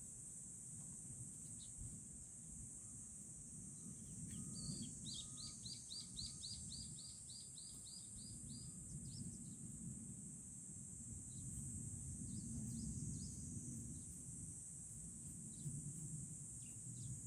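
Outdoor summer ambience: a steady, high-pitched insect drone throughout, with a bird giving a quick run of about a dozen rising chirps about five seconds in. There are a few faint clicks and a low rustle underneath.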